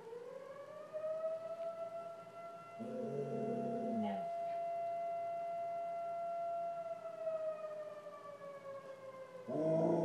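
A distant siren wails in one long tone that rises at the start, holds steady, then slowly falls. A springer spaniel howls along briefly about three seconds in, and again near the end.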